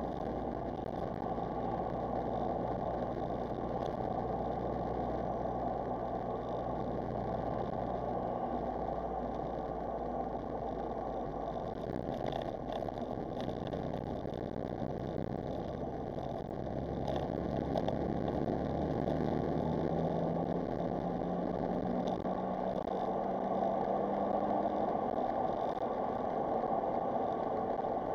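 Smart Roadster Brabus's small turbocharged three-cylinder engine running as the car is driven, under road noise. The engine note shifts a few times, then climbs slowly in pitch and grows a little louder in the second half as the car accelerates.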